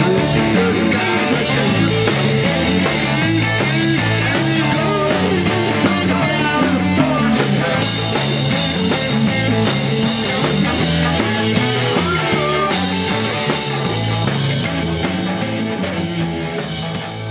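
Rock music with electric guitar and singing over a steady beat.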